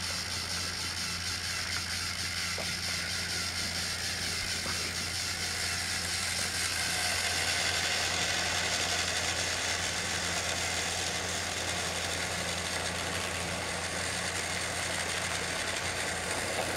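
Battery-powered TrackMaster toy train engines (Rheneas and Sir Handel) whirring steadily as their small motors and gearboxes drive them along plastic track, a little louder about seven to nine seconds in as one passes close.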